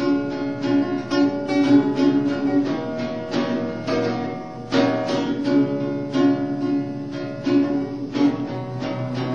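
Guitar music: chords strummed in a steady rhythm.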